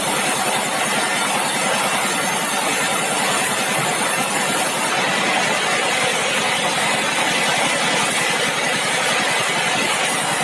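Sawmill machinery running steadily: an engine-driven saw rig with a loud, even mechanical noise and a fast, fine pulse, with no break or change.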